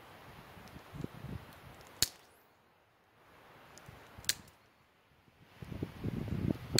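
Hand snippers cutting off willow shoots: two sharp snips about two seconds apart, with a low rumble of wind on the microphone swelling near the end.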